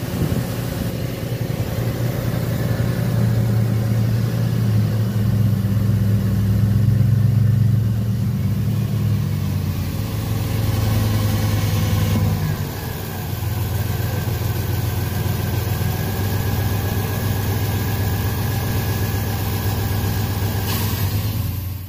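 2007 Dodge Dakota engine idling high and rough. Its speed sags a little about halfway through, then holds steady.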